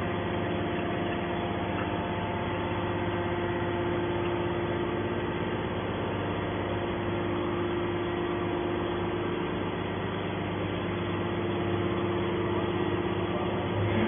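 Hydraulic metal scrap baler running steadily, its hydraulic pump humming with several level tones while the ejector pushes a pressed bale of crushed aluminium cans out of the chamber.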